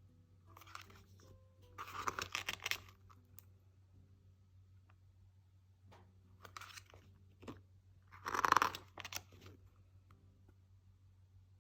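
Photobook pages being turned and handled: several short paper rustles, the loudest about two seconds in and about eight and a half seconds in, over a faint steady hum.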